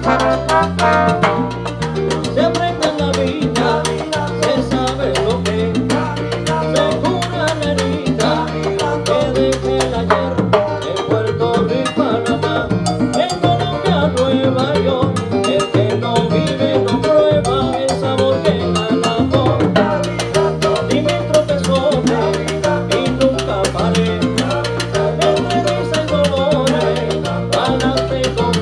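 Salsa band playing, with a repeating bass line under drum kit and horns.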